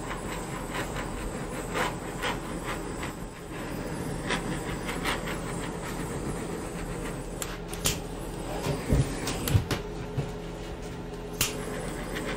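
Handheld torch flame hissing steadily as it is swept over freshly poured epoxy resin to pop surface bubbles, with scattered light clicks and a few soft knocks about three-quarters of the way through.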